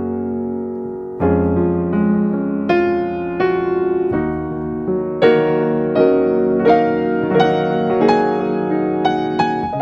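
Background piano music: a gentle melody of separate notes over held chords, with a fresh phrase starting about a second in.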